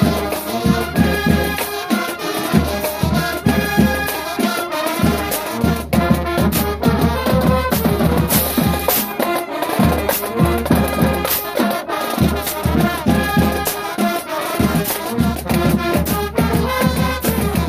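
Marching band playing a stand tune: brass carrying the melody over a steady drum beat.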